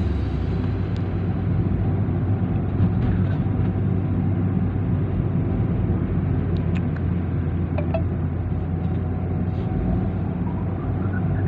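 Car engine and tyre noise heard from inside the cabin while driving, a steady low hum.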